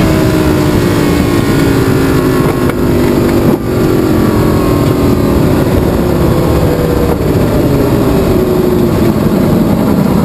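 Lamborghini Gallardo GT race car's V10 engine running hard, heard from inside the cockpit. The engine note sinks slowly, with a short break about three and a half seconds in.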